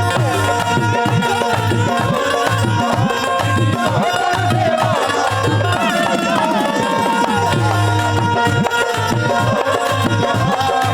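Instrumental music: tabla drumming in a quick, steady rhythm under held, sustained chords.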